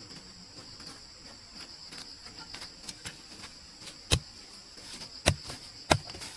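Insects, likely crickets, trill steadily at a high pitch, with faint scattered ticks. About four seconds in come three sharp knocks, the second and third close together.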